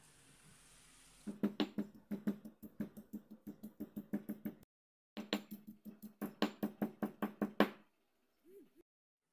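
Stone pestle pounding garlic cloves in a stone mortar: rapid sharp knocks, about five a second, in two runs with a short pause about halfway.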